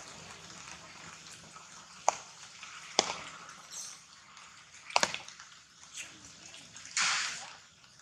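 Steady faint background hiss broken by three sharp clicks, spaced a second or two apart, and a short hissing burst near the end.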